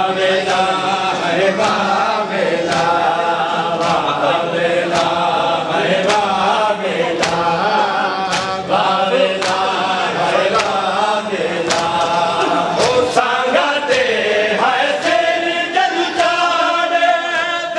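A group of men chanting a noha (Muharram lament) in unison, with a slap of hands on chests (matam) about once every second and a bit, keeping the beat.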